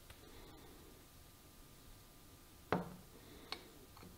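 A 3D-printed PLA lid being fitted back onto its cylindrical container: one sharp plastic click followed by a smaller one under a second later.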